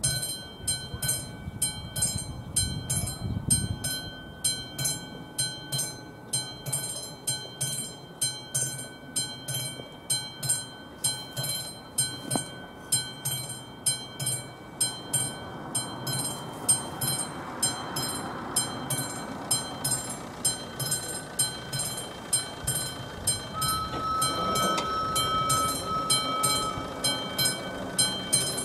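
Level-crossing warning bell of the classic electric type ringing steadily at about two strokes a second, signalling an approaching train. A low rumble builds from about halfway through, and a steady horn tone sounds twice near the end.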